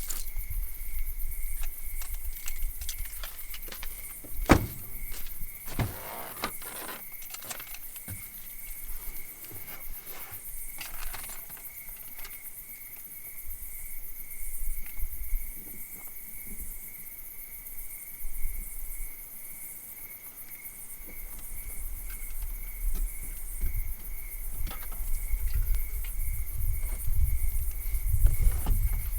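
Crickets chirring steadily in the night, with scattered close clicks, knocks and rustles of handling; the sharpest knock is about four and a half seconds in.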